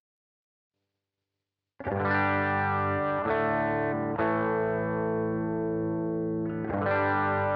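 Electric guitar played through a Boss GT-1 multi-effects processor with a distorted tone: sustained chords, four struck in turn, starting about two seconds in after total silence.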